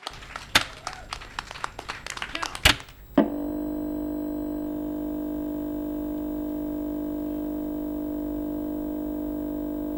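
Scattered hand clapping from a small audience and the performers for about three seconds. Then an abrupt switch to a steady electronic drone of several held tones at an even level, the logo sound of the outro card.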